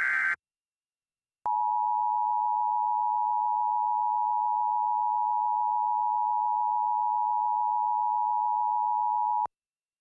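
The end of an Emergency Alert System SAME digital header burst, a shrill screeching data tone, stops just after the start. After about a second of silence, the EAS attention signal, two steady tones at 853 and 960 Hz sounded together, plays for about eight seconds and cuts off sharply. It signals that an alert message follows.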